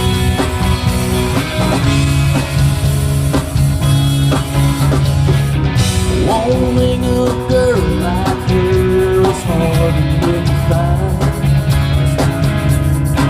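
A rock song played live by a band: a singing voice over guitar and drum kit.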